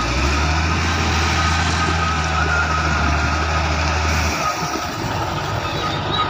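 Komatsu motor grader's diesel engine running under load as it spreads crushed stone, with the gravel crunching and scraping under its blade and tyres. A steady low drone in the engine note drops away about four seconds in.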